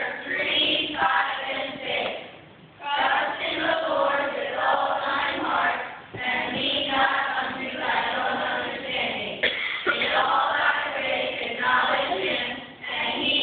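Children's choir singing, in phrases with short breaks between them.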